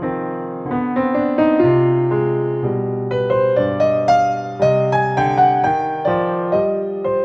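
Solo piano music: an allemande played as a melody of struck single notes over chords, each note dying away after it is struck.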